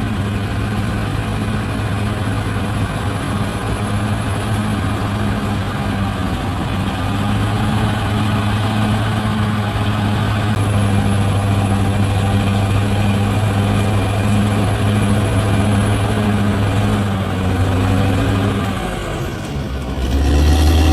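Large bulldozer's diesel engine running steadily under load, with a low, even hum. Shortly before the end it eases off, then comes back lower in pitch and louder.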